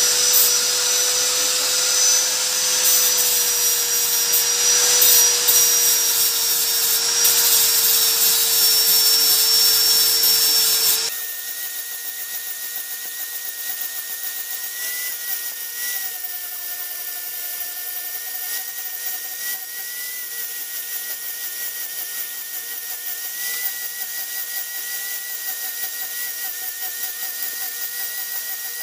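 Electric angle grinder running at speed while finishing a brass piece, a steady motor whine. About eleven seconds in, the sound suddenly drops and turns into a quieter, thinner, higher whine that holds to the end.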